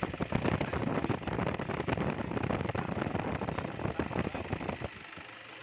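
Toyota Hilux engine running close up, with a loud, rapid knocking clatter that eases off about five seconds in.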